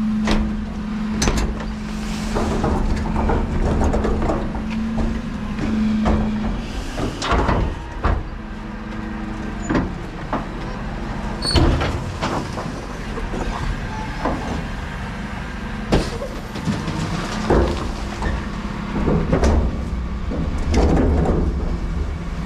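Dennis Elite refuse truck's diesel idling in a steady hum while large four-wheeled wheelie bins are handled beside it: repeated knocks and bangs of plastic lids dropping and bin bodies and wheels clattering, the biggest about halfway through.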